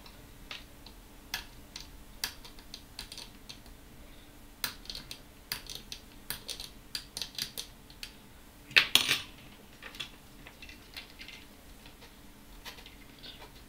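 Scattered small clicks, clinks and short scrapes from hands and small metal tools working on a corroded circuit board, with a louder clatter about nine seconds in.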